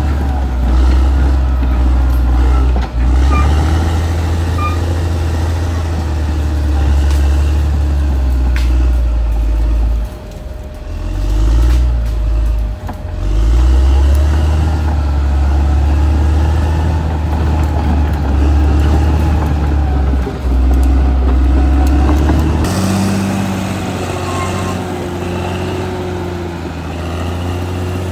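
Caterpillar D6R XL bulldozer's diesel engine running hard with a deep, steady drone, easing off and picking back up a couple of times around the middle. Near the end the engine note turns lighter.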